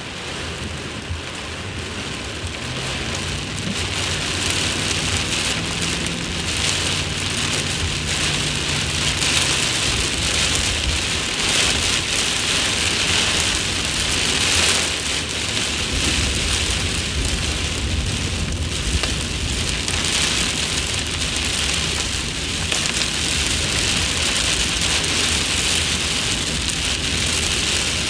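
Rain falling insanely hard on a car windshield: a dense, steady hiss that swells over the first few seconds, with a low rumble underneath in the second half.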